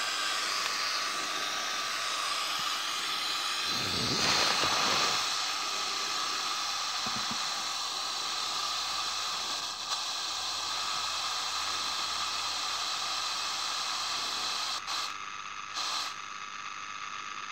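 Sangean pocket FM radio tuned to 98.8 MHz giving steady interstation hiss, turned up loud, while the kit radio's local oscillator is tuned toward that frequency. Near the end the hiss thins out, with two short bursts back, as the oscillator's carrier comes onto the frequency and quiets the receiver.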